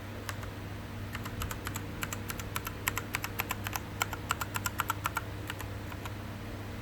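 Typing on an Azio MK-MAC-U01 mechanical keyboard: a quick, uneven run of key clacks that thins out and stops about a second before the end, over a steady low hum.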